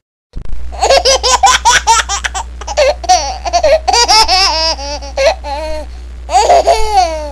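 High-pitched cartoon laughter: a quick run of short ha-ha bursts for the first couple of seconds, then longer, wavering laughs, over a steady low hum.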